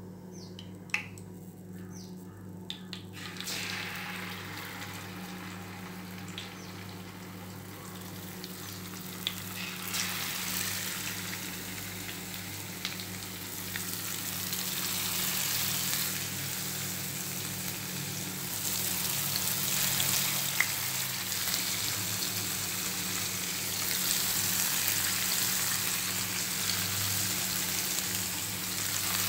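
Marinated river fish pieces frying in hot oil in a pan, a dense sizzle. It sets in about three seconds in, as the fish goes into the oil, after a few light clicks, and grows louder. A steady low hum runs underneath.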